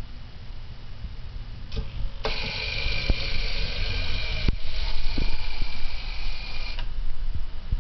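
Small wheeled robot's electric drive motors whining as it drives forward. The whine starts about two seconds in, breaks briefly in the middle and cuts off near the end, over a low rumble with a few light knocks.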